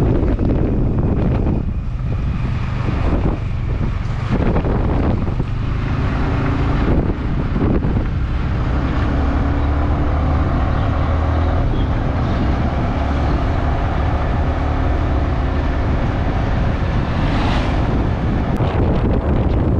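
Motorcycle being ridden, engine running under heavy wind buffeting on the microphone.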